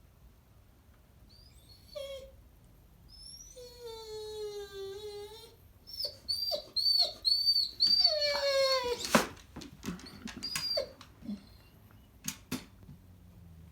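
A dog whining and howling in drawn-out calls that slide down in pitch, with short high squeaks between them and a few sharp knocks around the middle: an excited greeting.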